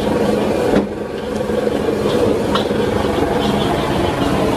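Metal ladle scraping and clinking in a wok of frying rice, over the steady loud roar of the gas wok burner.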